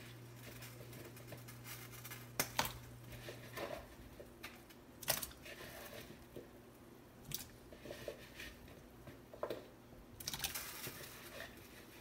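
A low electric hum from a glass-top stove's burner element cuts off about three and a half seconds in as the element cycles off. Scattered light clicks and taps sound over a pot of potatoes in water coming to the boil.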